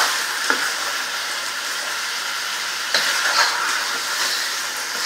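Chicken pieces sizzling as they fry in hot oil over a high flame, with a spatula stirring and scraping them against the pot now and then.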